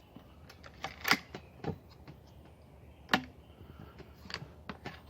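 A handful of scattered sharp clicks and light knocks of hand tools and metal parts being handled while the outboard's transom clamp bracket is assembled. The two loudest come about one second and three seconds in.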